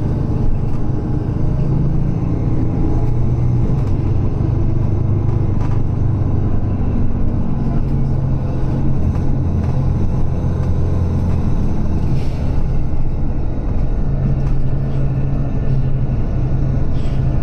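Steady low engine rumble and road noise heard from on board a moving vehicle, its engine hum shifting in pitch a few times as it drives.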